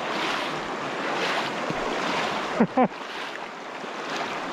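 Shallow freestone stream rushing over rocks in a steady wash. About two and a half seconds in, a brief voice sound falling in pitch rises over it.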